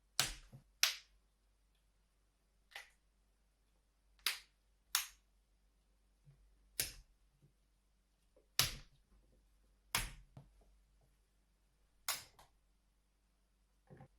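A raw carrot snapped into pieces by hand, a foley stand-in for twigs crackling in a fire: about eleven sharp, crisp snaps at irregular gaps of a second or two.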